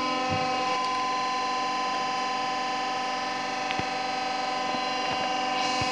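Steady machine hum with several even, constant tones: the engine's electric lubricating-oil pump running, filling the diesel with fresh oil after an oil and filter change.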